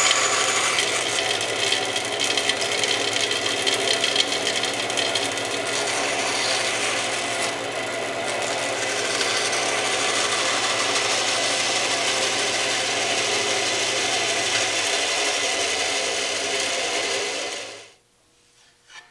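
Band saw running and cutting through a thin wooden board, a steady sawing noise over the motor's hum. The hum fades about three-quarters of the way through, and the sound cuts off suddenly near the end.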